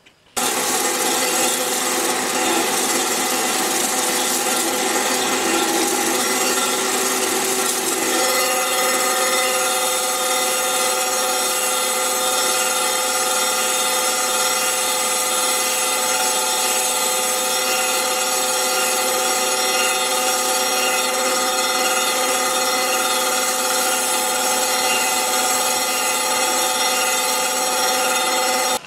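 Storm Vulcan 15A crankshaft grinder's wheel grinding the tig-welded rear main seal surface of a forged Willys 134 crankshaft, taking light finishing passes down toward 2.310 inches. It is a steady grinding hiss over a whine of several steady tones; it starts suddenly, and the tones shift about eight seconds in.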